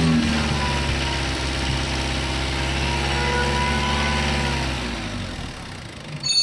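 Diesel engine running at raised idle while an injector line nut is loosened to bleed air out of the injection pump and lines. The steady engine note fades about five seconds in, and there is a short sharp click near the end.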